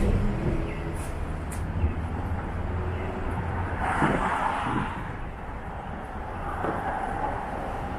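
City street traffic: a low vehicle rumble, with a passing vehicle swelling up about four seconds in and another toward the end.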